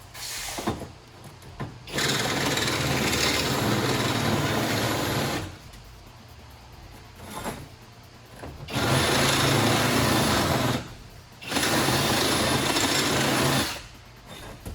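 Handheld electric power tool cutting or grinding metal in three runs of about two to three and a half seconds each, with short pauses between them.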